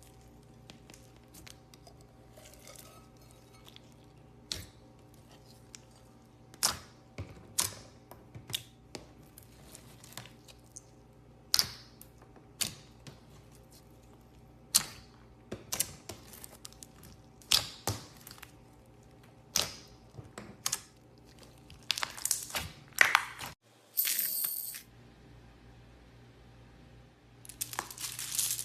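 Clear slime being pressed and worked by hand, giving a string of sharp, irregular clicks and pops, with a short hissing crackle near the end.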